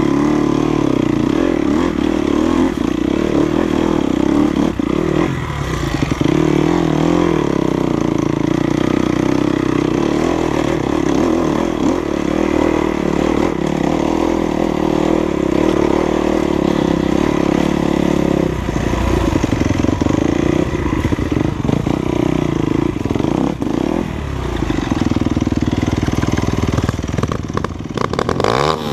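Enduro dirt bike engine running on the trail, holding a steady note for long stretches and changing with the throttle, with a sharp rise in revs near the end.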